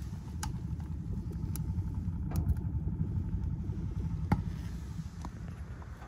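Wood fire burning hard in a homemade stove made from a stainless vacuum canister, drawing up its stovepipe with a low uneven rumble. A few sharp cracks come through, the loudest about two and a half and four seconds in.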